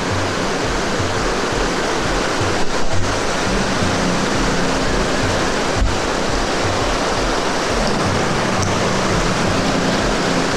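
Steady rush of fast-flowing river water, loud and even, with background music carrying low sustained notes underneath. A couple of brief knocks, about three and six seconds in.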